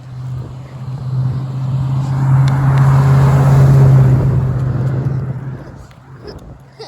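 A road vehicle drives past close by: engine hum and tyre noise swell to a loud peak about three to four seconds in, then fade away. No horn sounds.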